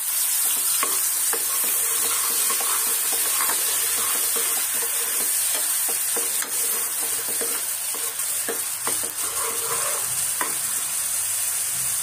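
Onion paste sizzling as it fries in hot oil in a steel kadai, stirred with a steel ladle that scrapes and clicks against the pan again and again.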